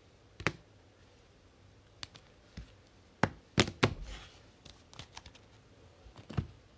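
Trading cards being handled on a tabletop: a handful of sharp, separate taps and clicks, the loudest a quick pair a little over three seconds in.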